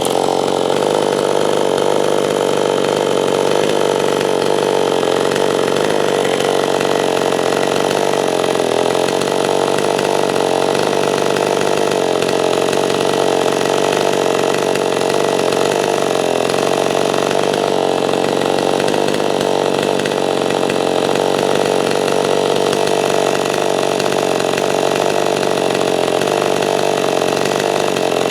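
Chainsaw running steadily at high revs under load, ripping lengthwise through a softwood log to mill a slab freehand.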